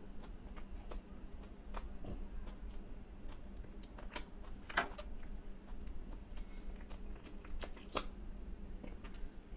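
Eating by hand from a steel plate: scattered small clicks and crunches of fingers mixing rice on the plate and of chewing, with a sharper crunch about five seconds in and another near eight seconds, over a steady low hum.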